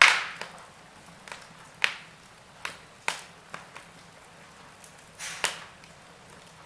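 Wood fire crackling in a fireplace: irregular sharp pops and snaps over a faint hiss, the loudest right at the start.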